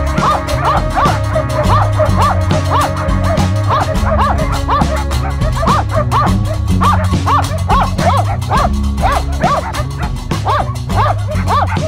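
Laika hunting dogs barking in a steady run, two or three barks a second, as they bay a bear. Background music plays underneath.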